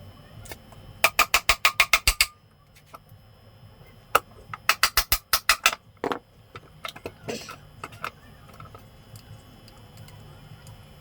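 Two quick runs of sharp clicks, about seven a second, from hand-tool work on a 100cc motorcycle engine, followed by a few softer knocks.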